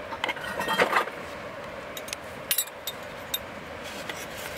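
A metal knife scraping and tapping inside a tin can as canned fish in tomato sauce is pushed out into an enamel bowl. There is a cluster of scrapes and clicks in the first second, a sharper click about two and a half seconds in, and a few light taps after.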